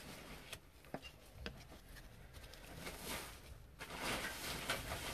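Baseball trading cards being slid off the top of a hand-held stack: a few faint clicks in the first couple of seconds, then soft brushing rustles of card stock sliding against card.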